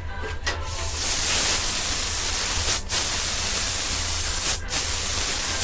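Cheap air spray gun spraying paint: a steady hiss of compressed air and paint that starts about a second in and comes in three long trigger pulls with two brief breaks between them.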